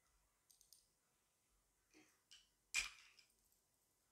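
Metal spoon clicking and scraping against a small ceramic bowl while garlic paste is scooped out: a few light clicks, the loudest about three seconds in.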